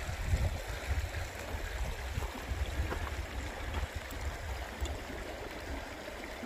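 Shallow mountain creek flowing and trickling over rocks, a steady even rush of water, with an uneven low rumble underneath.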